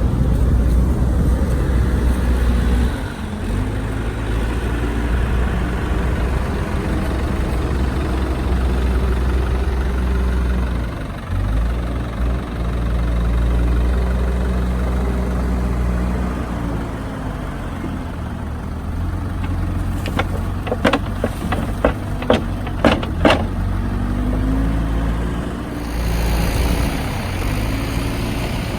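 Tractor diesel engine running, its pitch dropping and rising again several times as the revs change, with a quick series of sharp knocks about two-thirds of the way through.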